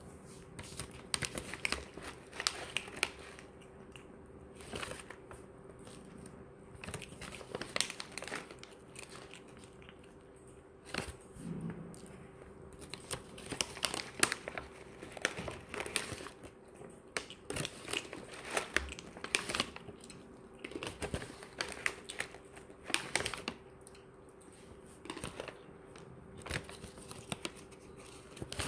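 Cats eating, crunching and chewing their food in quick, irregular clicks and crackles.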